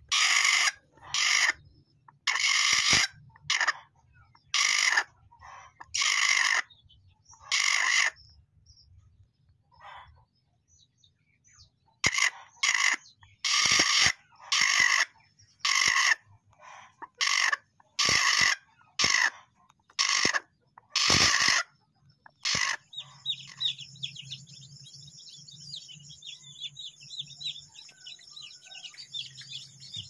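A broody hen, puffed up on its nest, giving harsh squawks one after another, about one or two a second, with a pause of a few seconds in the middle. This is a hen defending its nest. The calls stop about three-quarters of the way through, and a steady high tone with a low hum follows.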